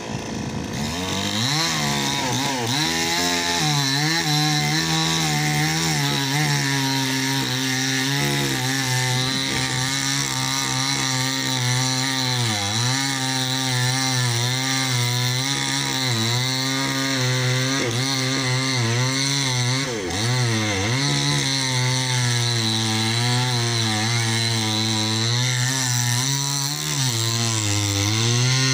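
Chainsaw running at high speed and cutting into a tree trunk at its base, its pitch dipping briefly several times as the chain bites into the wood.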